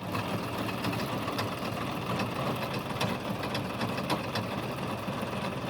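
Tractor-drawn potato harvester running: a steady engine hum under a constant irregular clatter of clicks and knocks.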